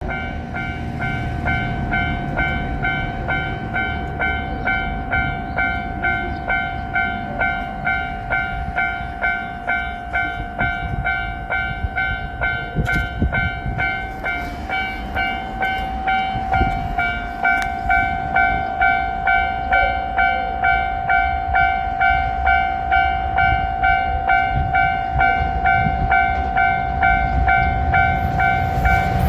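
Japanese railroad crossing warning bell ringing in a steady, even 'kan-kan' rhythm. An approaching train's noise starts to rise right at the end.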